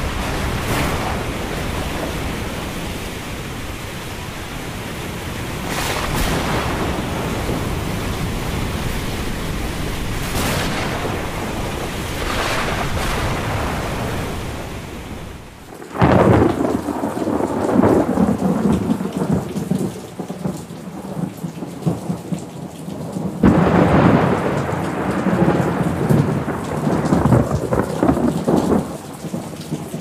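Thunderstorm: a steady hiss of heavy rain with several sharp thunder cracks. Just before halfway the sound changes abruptly to two long, loud rolls of thunder, one starting about halfway and the other a little over three quarters of the way through.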